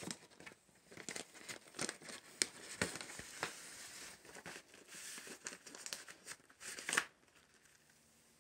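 Paper and card rustling and crinkling as vinyl LP sleeves and a printed lyric insert are handled and shifted. It comes as a string of short rustles that stops about seven seconds in.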